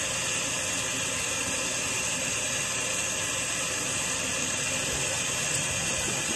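A steady, even hiss that carries on unchanged, with no breaks or separate knocks.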